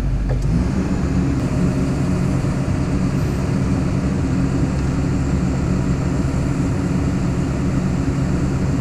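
Track-hoe excavator's diesel engine running steadily, its pitch rising a little just after the start and then holding.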